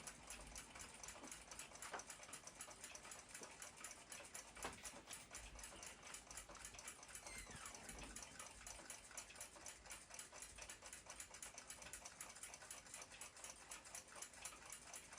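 Faint, fast, regular clock ticking, several ticks a second, with a couple of slightly louder single clicks.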